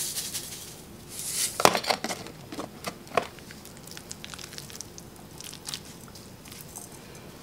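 Bread crumbs shaken from a container onto a soft veggie-meat burger patty, a hissing rustle about a second in, then hands pressing and patting the crumbs onto the moist patty over a bowl, with soft squishes and a few light knocks.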